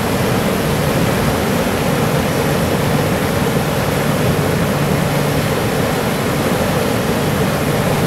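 Thunderous, steady rush of water pouring down a fish ladder.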